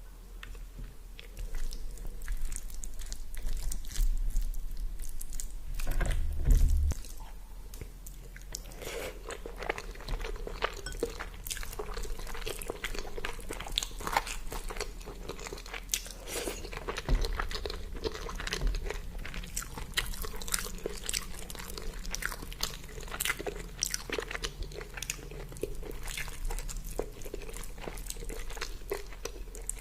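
Close-miked eating: a person biting and chewing food, with many small crunches and mouth clicks. There is a low thump about six seconds in.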